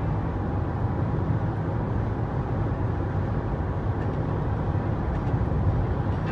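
Steady road and engine noise heard from inside the cabin of a car driving at freeway speed.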